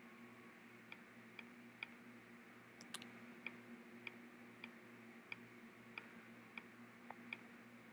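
Faint computer mouse clicks, a slightly uneven series of about one every half second to second, with a somewhat stronger click about three seconds in. The clicks come as checkboxes are ticked and drop-down menus are opened, over a steady low electrical hum.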